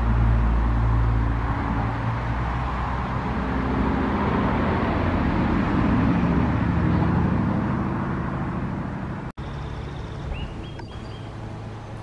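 Road traffic noise: a motor vehicle passing with a low engine rumble that swells and then fades. After an abrupt cut about nine seconds in, it is quieter, with a few short high chirps.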